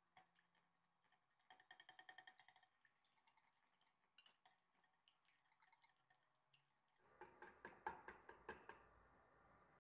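Wire whisk beating a thin egg-and-milk batter in a glass bowl: the metal wires clink rapidly against the glass, with the liquid swishing, in quick runs of about eight strokes a second. The loudest run comes near the end and cuts off suddenly.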